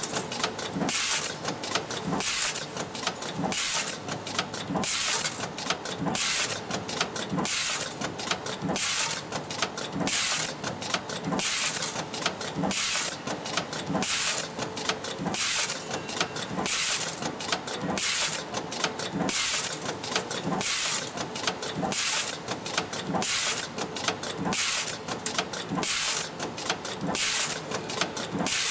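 Automated fork-stamping press line with a pneumatic feeder, cycling about once a second: each cycle brings a press stroke and short hisses of compressed air, over a steady machine hum.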